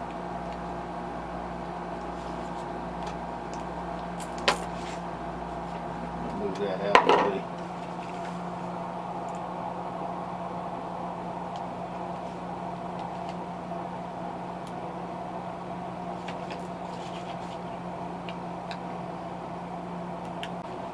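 Steady background hum with several held tones, under a sharp click about four and a half seconds in and a short clatter about seven seconds in, the loudest moment. The clicks come from hands handling a small plastic crankbait lure and its stick-on eyes on a workbench.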